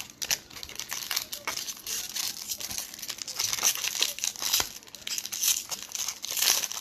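Foil wrapper of a Topps baseball card pack being pulled open and crinkled by hand: a dense, continuous run of sharp, high-pitched crinkles and clicks.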